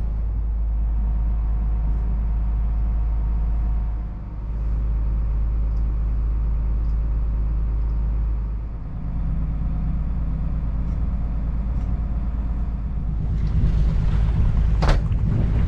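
A trawler yacht's diesel engine running steadily, a low drone heard on board. Near the end, wind buffets the microphone.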